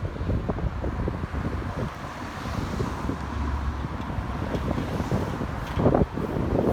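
Wind buffeting the microphone in irregular gusts over a low rumble, with a stronger gust just before the end.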